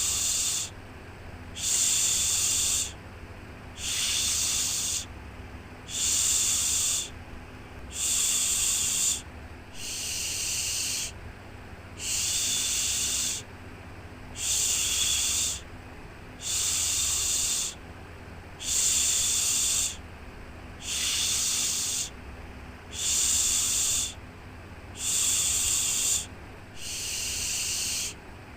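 Rhythmic shushing for a baby: a 'shhh' of about a second, repeated roughly every two seconds, over a steady low hum.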